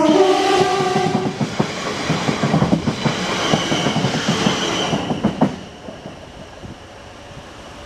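Class 450 Desiro electric multiple unit running past at close range, its wheels clacking rhythmically over the rails. A steady whine shows in the first second or so. The sound drops away suddenly about five and a half seconds in as the last coach clears, leaving a quieter steady rush.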